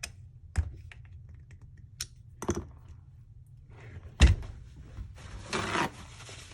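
Small tools and a pistol slide being handled during screw tightening: a few sharp clicks and light knocks, a heavier thunk about four seconds in, then a brief rustle.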